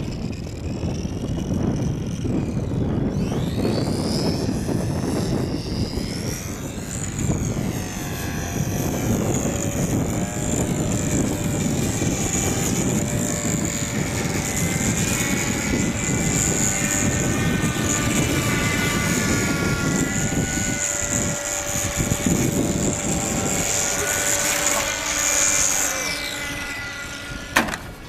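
Scratch-built bird-shaped radio-control model in flight: its motor and propeller give a steady whine that rises and falls in pitch, over a low rumble. The whine fades and drops away near the end.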